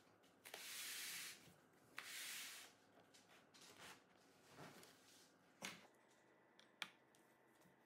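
Faint handling sounds of a laptop being turned around on a wooden tabletop: two soft scraping swishes, then a few light taps and two small knocks.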